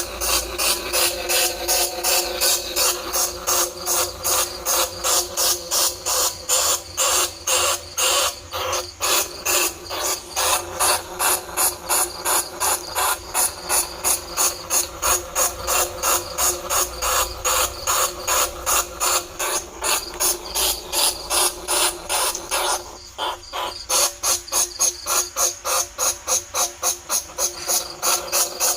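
Bandicoot rat lure call: a fast, even series of sharp squeaking chirps, about three a second, with a short break about two-thirds of the way through.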